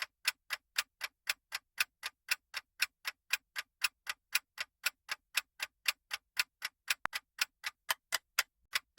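Countdown-timer sound effect of a ticking clock: steady, evenly spaced ticks, about four a second.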